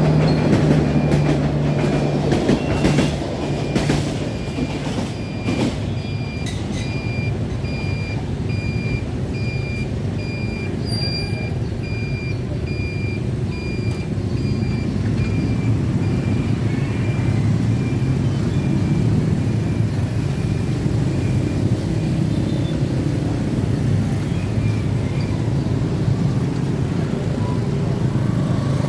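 The tail of the SE8 diesel-hauled passenger train clatters over the level crossing, with wheel clacks in the first few seconds. Then the crossing's warning signal beeps at an even pace, stopping about halfway through. After that, the rumble of motorbike and van engines builds as traffic moves off across the tracks.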